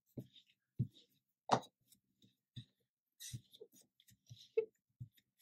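Light, irregular tapping as a Distress Ink pad is dabbed repeatedly onto a gel printing plate: about nine soft knocks, the strongest a second and a half in.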